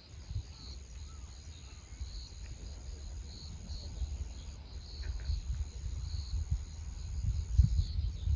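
Wind buffeting the microphone in gusts, growing stronger toward the end, over a steady high-pitched insect drone and scattered short chirps.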